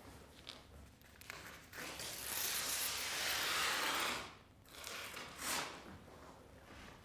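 A large sheet of drawing paper being ripped off a wall: one long rasping tear lasting about two seconds that stops sharply, followed by a shorter rip or rustle of the torn paper.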